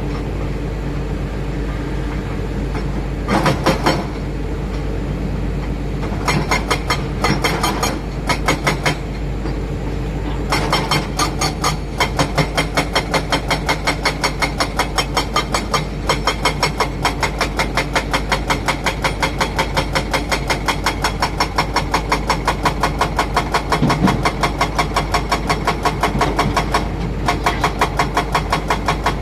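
Heavy diesel construction machinery running steadily, with bursts of fast rhythmic clatter a few seconds in and again around six to nine seconds, then continuous fast clatter of several beats a second from about ten seconds in.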